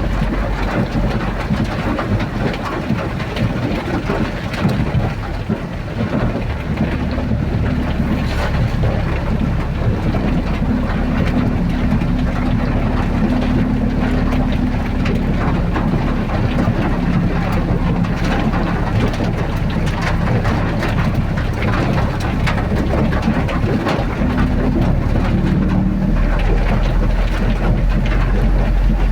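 A vehicle driving in the rain: steady engine and road noise with rain, the engine's pitch shifting now and then.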